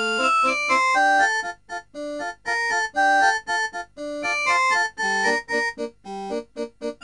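Background music: an upbeat instrumental tune of short, choppy keyboard-like notes with brief gaps between phrases.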